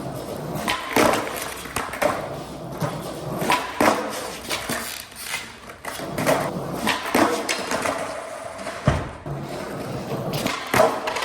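Skateboard rolling, with repeated sharp clacks and knocks from the board's wheels and trucks.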